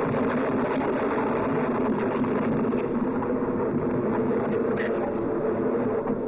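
Laboratory electrical machinery running with a loud, steady hum and buzz, and a brief crackle about five seconds in.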